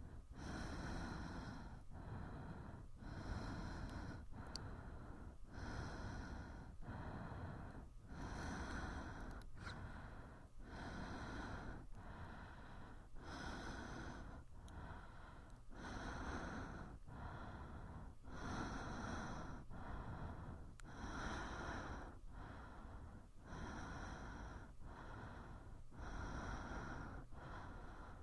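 A person breathing rhythmically: steady alternating breaths in and out, about one full breath every two and a half seconds, each breath an airy hiss lasting roughly a second.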